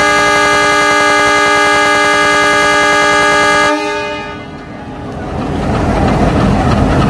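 Air horn of a WDM-3A diesel locomotive sounding one long steady blast that stops a little over halfway through; the diesel engine's running sound then swells back up.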